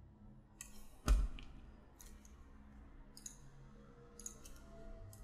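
Scattered clicks of a computer mouse and keyboard, the loudest about a second in with a dull knock.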